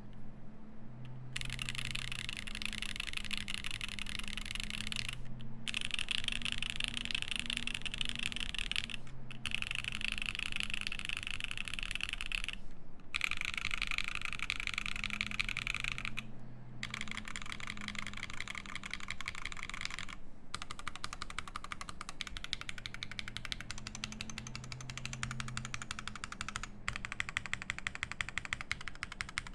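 Fast typing on a Keycult No.1 TKL mechanical keyboard with an aluminium plate, lubed Alpaca linear switches and GMK keycaps. Rapid keystrokes come in runs of a few seconds, broken by short pauses roughly every four seconds.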